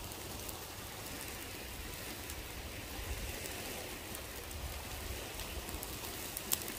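Tomahawk steak sizzling over a hot open fire: a steady hiss, with a single sharp pop near the end.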